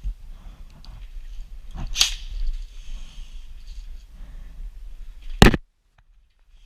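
A few sharp snaps or knocks over a low rumble of movement, the loudest about five seconds in, then the sound drops out completely for about a second.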